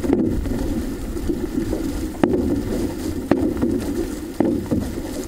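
Water rushing along the hull of an OC-6 outrigger canoe under way. Sharp knocks come roughly once a second, three of them in the second half.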